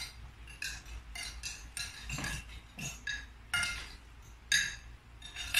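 Spoons and forks clinking against plates and bowls during a meal: a dozen or so scattered, sharp clinks that ring briefly.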